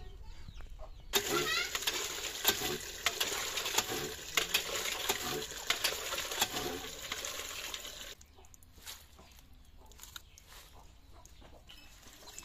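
Water gushing from a cast-iron hand pump into a metal pot, with sharp clatters mixed in; it starts suddenly about a second in and stops after about seven seconds. After that there is quieter splashing and rustling as spinach leaves are washed by hand in the pot of water.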